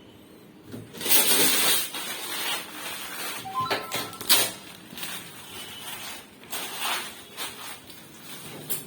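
Packaging being handled: irregular rustling, crinkling and scraping, loudest about a second in, with a few short squeaks near the middle.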